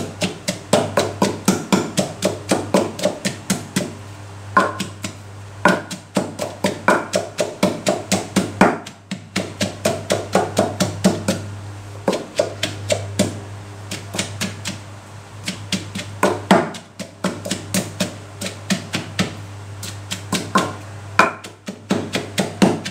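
A wooden pestle pounding chillies, shallots and garlic in a clay mortar, about three strikes a second with a few short pauses, crushing them into a chilli paste. A steady low hum runs underneath.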